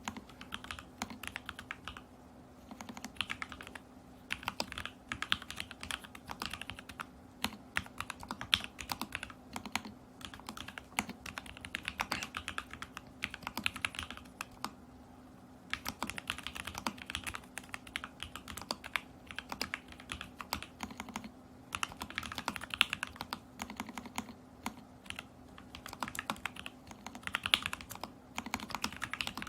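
Continuous typing on a custom Alice-layout mechanical keyboard with lubed and filmed Lavender switches, in a stacked acrylic case with tape mod and Polycaps Whale keycaps: a fast, irregular patter of key clicks, with short pauses about 2 seconds and 15 seconds in.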